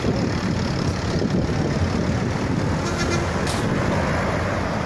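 Bus engine running steadily, with traffic noise around it.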